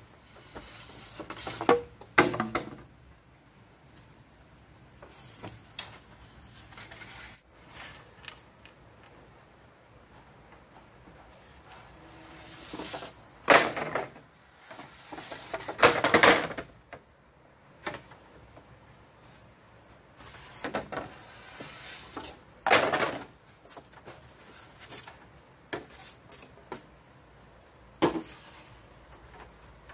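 Crickets chirring steadily, with a handful of loud knocks and rustling bursts at irregular intervals: two close together near the start, a longer rustling burst around the middle, and single sharp knocks later on.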